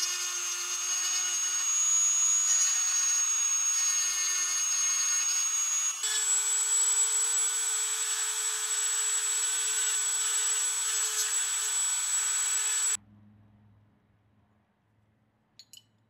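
Flexible-shaft rotary tool with a small burr whining steadily as it grinds excess solder off the inside of a brass padlock case. The pitch steps up about six seconds in, and the tool cuts off suddenly near the end, followed by a few light metal clinks.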